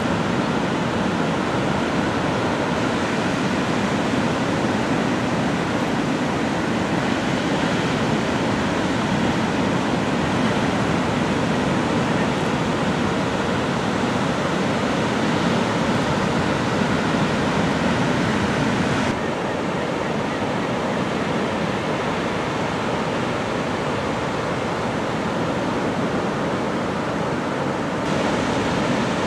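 Ocean surf: a steady rush of breaking waves, changing abruptly about two-thirds of the way through and again near the end.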